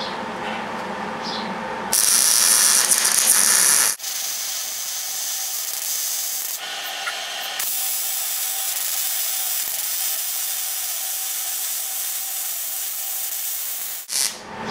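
Wire-feed (MIG) welder arc running as a weld bead is laid on steel: a steady hiss, with a louder stretch of about two seconds, a brief break, and then about ten more seconds of welding that stops shortly before the end. A faint steady room hum comes first, before the arc strikes.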